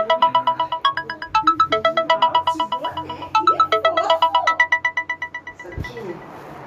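Samsung phone ringtone playing: a bright electronic melody of quick repeated notes, about eight a second, in phrases that restart about every two seconds. It fades out near the end.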